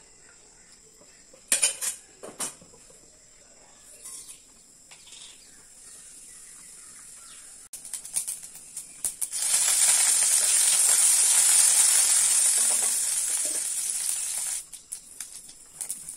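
A few sharp knocks of a utensil against a nonstick kadai, then, about nine seconds in, a loud, steady sizzle of tempering spices frying in hot oil, which stops suddenly after about five seconds.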